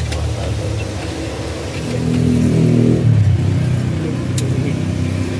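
Road traffic beside a street-food cart: a motorbike engine rises and passes close by, loudest about three seconds in, over a steady traffic hum. A light metal clink comes about four seconds in.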